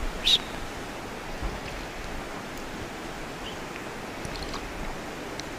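A man drinking from a ceramic mug near a microphone: one short, sharp sip sound just after the start, then faint small sounds, over a steady hiss.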